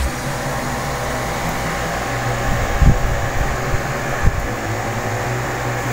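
Steady whirring noise with a low hum, broken by two brief low thumps about three and four seconds in.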